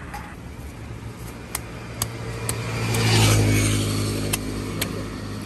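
A motor vehicle passes on the road, its engine swelling to its loudest about three seconds in and then fading. Five sharp knocks of a large curved knife chopping fish on a wooden stump block are spread through the sound.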